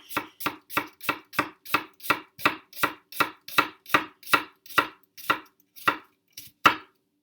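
New kitchen knife chopping onion on a cutting board: a steady run of sharp blade strikes on the board, about three a second, becoming fewer and less even near the end.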